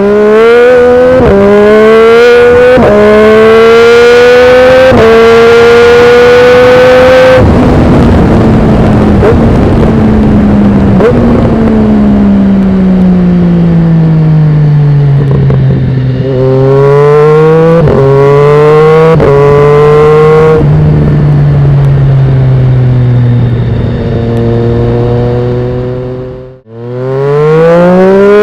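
Triumph Street Triple 765 RS's inline-three engine through a Dominator aftermarket exhaust, accelerating hard with the note rising through several upshifts, then easing off with a falling note. It accelerates through the gears again, cuts out abruptly near the end, and returns climbing in pitch.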